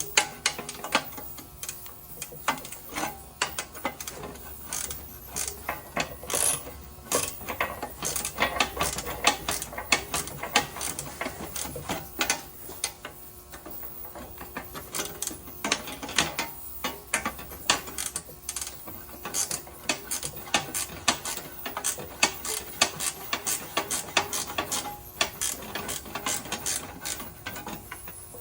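Hand ratchet wrench clicking in quick, irregular runs as bolts are worked loose, with occasional metal clinks.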